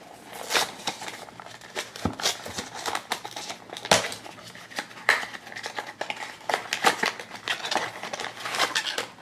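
A small cardboard blind box is handled and opened by hand, its flap prised up and pulled open, with a dense run of sharp clicks and scratchy rustles from the card.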